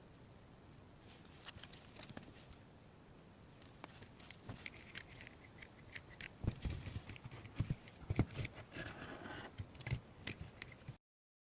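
Small plastic miniature toy pieces being handled and set down: scattered light clicks and taps that grow busier, with stronger knocks and a short scraping rustle in the second half, then the sound cuts off suddenly.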